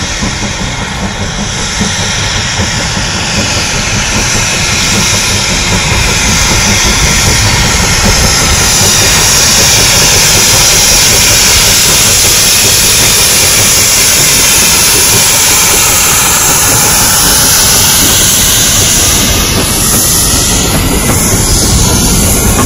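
Steam locomotive hauling wooden carriages passing close by: steam hiss and exhaust with the rumble of the train on the rails, growing louder over the first several seconds as it draws near, then holding steady as the carriages roll past.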